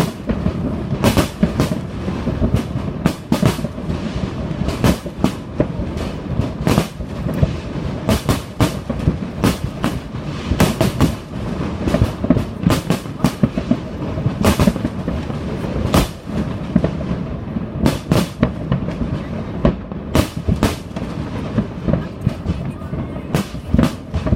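Fireworks going off in a dense, irregular barrage of sharp bangs, often several a second, over a continuous low rumble.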